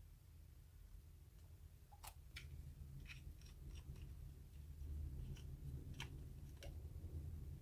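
Slime being squished and mixed by hand, giving faint, scattered sticky clicks and small pops over a low rumble.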